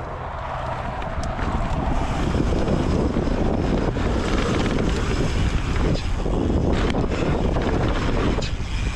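Wind rushing over the microphone and trail noise as a mountain bike rides at speed, growing louder over the first two seconds and then holding steady, with a couple of brief sharp clicks from the bike.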